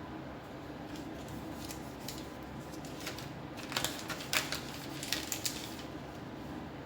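Handling noise: a few light clicks and taps in two short clusters, one around the middle and one a little later, over a steady low hum.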